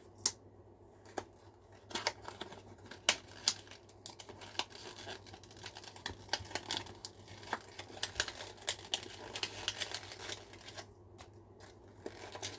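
Plastic packaging being wrestled open by hand: repeated crinkling and crackling with many sharp clicks and snaps. The sound starts about two seconds in and eases off briefly near the end.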